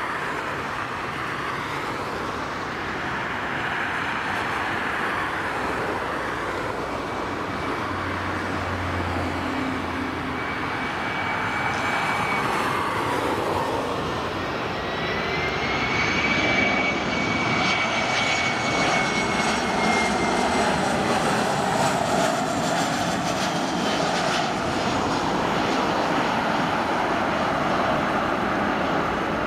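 Boeing 737-500 jet on final approach, its CFM56 turbofan engines making a steady rushing noise. A high fan whine comes in partway through and grows stronger about halfway through as the airliner passes close.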